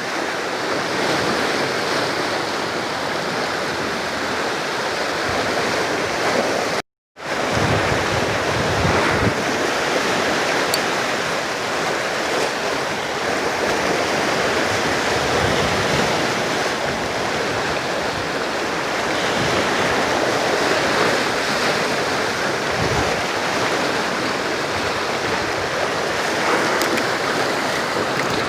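Steady wash of sea waves on the shore, with wind on the microphone. The sound cuts out completely for a moment about seven seconds in.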